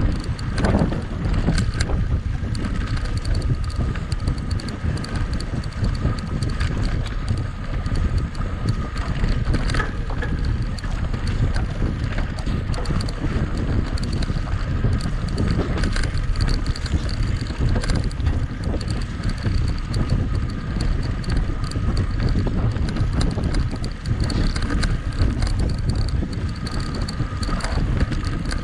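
Wind rushing over the microphone while a mountain bike is ridden at speed on a race trail, the bike's tyres rolling and its frame and parts rattling with small knocks over the ground.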